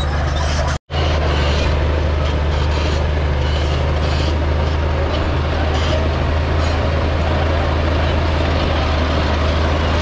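Heavy earth-moving machinery's diesel engine running steadily with a deep low hum. The sound drops out completely for a split second about a second in.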